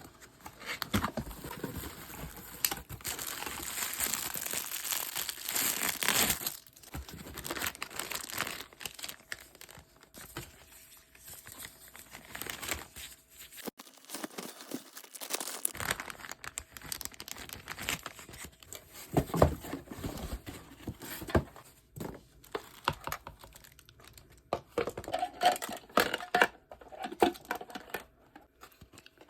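Crinkling and tearing of packaging being handled and opened, in irregular rustling bursts, densest over the first several seconds.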